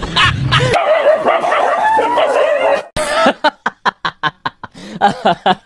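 A dog whining with a wavering pitch, then, after a sudden cut about three seconds in, a fast run of short yips, about four a second.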